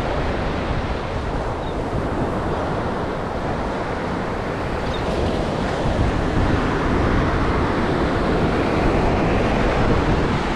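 Surf breaking and washing up the beach, a steady rushing wash, with wind buffeting the microphone.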